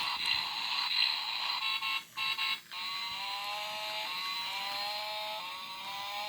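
Electronic sound effects from a battery-operated toy car: a buzzy, alarm-like tone, then from about three seconds in a string of short electronic tones stepping up and down in pitch.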